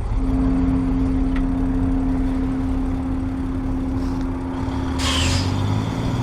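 A motor running with a low rumble and a steady hum, with a short hiss about five seconds in.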